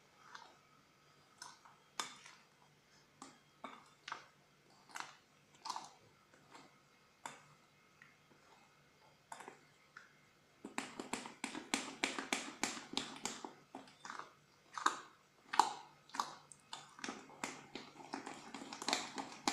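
Metal spoon stirring thick, wet semolina batter in a glass bowl: scattered clicks and scrapes against the glass, becoming a fast, continuous run of strokes about halfway through.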